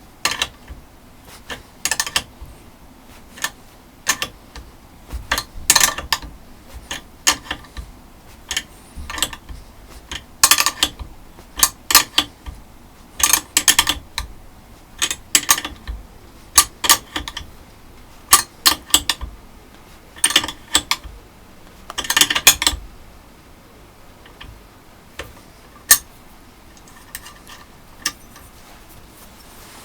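Hand-operated M8 rivet nut tool being worked to set a rivnut in 2 mm steel: irregular sharp metallic clicks and clacks, with a denser clatter about 22 seconds in and fewer after that.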